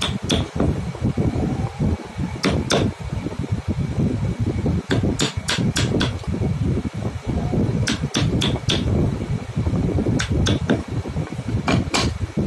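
A wood chisel being struck with a hammer: sharp knocks in short runs of two to five, a second or two apart, as it chops into a jigsaw-cut wooden piece. A steady low rumble runs underneath.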